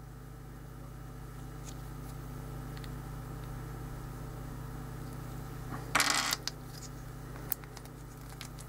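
Small plastic puzzle-cube pieces handled in the fingers: faint clicks, a louder rustle about six seconds in and a sharp click a moment later, over a steady low hum.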